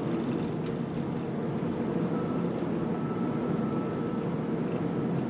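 Steady road and drive noise of a moving car heard from inside the cabin: a low, even hum with tyre hiss, and a faint thin high tone for about two seconds midway.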